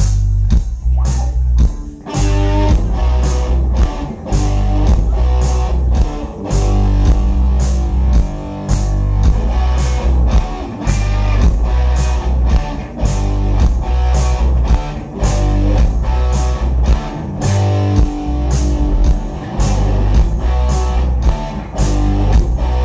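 Live rock band playing an instrumental passage: guitars over a heavy bass line and a steady drum beat with regular cymbal hits. It starts sparse and the full band comes in about two seconds in.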